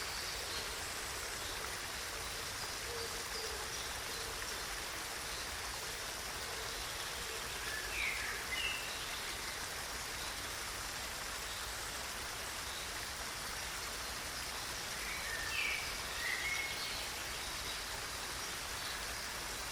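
Waterfall: water falling and rushing in a steady, even roar. Short high bird chirps come through twice, about eight seconds in and again around sixteen seconds in.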